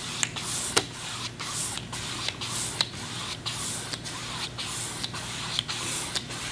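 A paintbrush stroking back and forth across a canvas, blending wet acrylic paint. Each stroke gives a short hiss, about two strokes a second, with a few faint clicks.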